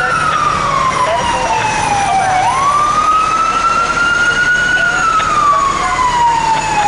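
A fire truck's Whelen electronic siren on a slow wail. The pitch falls slowly for about two seconds, jumps back up, climbs gradually, then falls again near the end.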